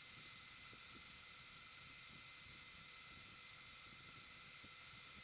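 Hot air rework station blowing a steady hiss of hot air at 420 degrees onto a preheated motherboard, melting the solder under DrMOS power-stage chips to desolder them.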